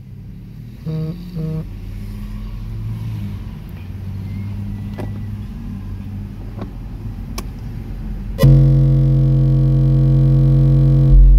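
Two Soundstream XXX 15-inch car subwoofers playing a loud, steady 45 Hz bass test tone for an SPL meter reading. It starts suddenly about eight seconds in and steps up louder near the end. Before it, low-level sound with two short beeps about a second in.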